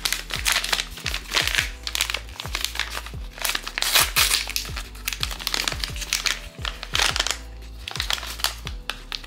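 Crinkling of a blind-box figure's paper and clear plastic wrapping as hands pull it open, in repeated loud bursts, over background music with a steady beat.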